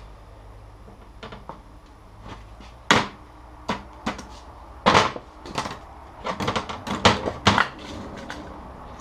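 Short knocks and clicks of a Cummins timing cover being handled and shifted on a workbench, scattered at first and coming in a quick run of taps late on.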